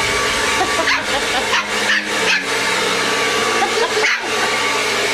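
Shih Tzu puppy barking several times, about five barks, at a running blow dryer, over the dryer's steady whoosh.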